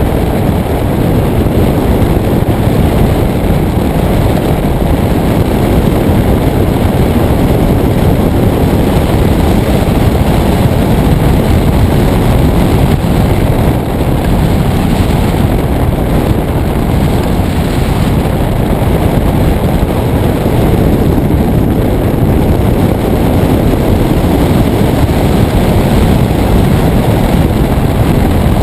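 Loud, steady rush of wind over the microphone from the airflow of a hang glider in flight.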